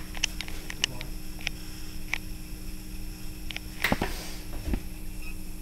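Small plastic clicks and taps from handling a squeeze bottle of dish soap, with a sharper knock just before four seconds in and a dull thump shortly after.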